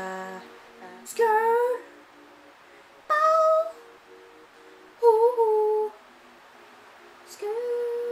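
A young woman's wordless vocal noises, rather weird ones, made as ad-libs for a rap track. There are three short gliding calls about two seconds apart and a longer held one near the end, over faint backing music.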